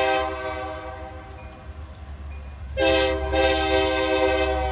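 Locomotive air horn, a Nathan K3LA on the lead Union Pacific SD70M of an approaching freight train, sounding a chord: one blast ends just after the start, then a long blast begins about three seconds in and carries on past the end. A steady low rumble lies underneath.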